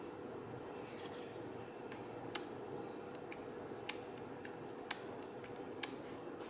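Sharp plastic clicks as the swivelling head of a Sekonic L-358 light meter is turned and handled. Four louder clicks come about a second apart, among fainter ones, over a faint steady hum.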